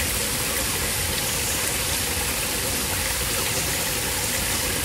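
Steady rushing of a flowing forest stream.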